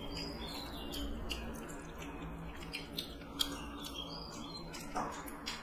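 People eating rice and curry with their hands: quiet chewing and mouth sounds, with small sharp clicks of fingers working rice on steel plates.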